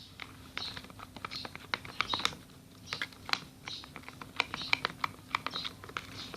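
Glue slime being stirred in a container as it starts to clump: irregular clicking and sticky smacking of the stirrer against the container and the thickening slime, several strokes a second.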